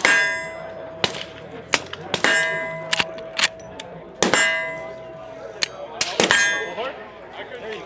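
Suppressed gunfire: a string of quiet shots about a second apart, with a metallic clang and long ring after several of them, as of rounds striking steel targets downrange.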